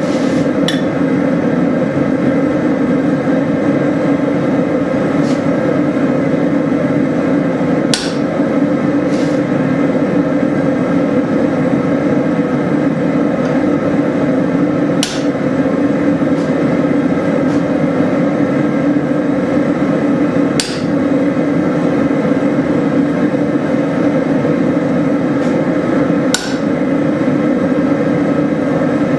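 Steady, loud hammering din from forging hot leaf-spring steel while drifting out the eye of a hatchet, with a few sharp metallic clinks scattered through it.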